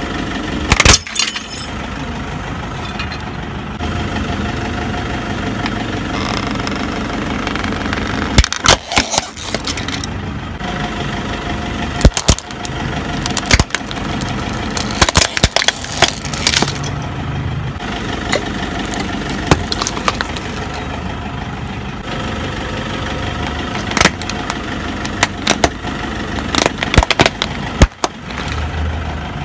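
Car engine running slowly while its tyre rolls over small plastic objects, with repeated sharp cracks and snaps as they break under the wheel, several seconds apart.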